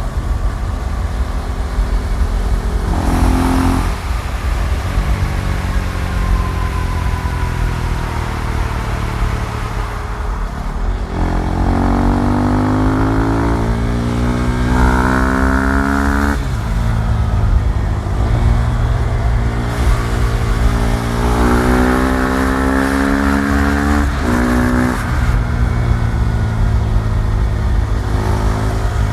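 KTM Duke 390's single-cylinder four-stroke engine running and revving, its pitch climbing several times and dropping back sharply, as when accelerating through the gears. There is a short rev about three seconds in, and two long pulls, in the middle and again near the end.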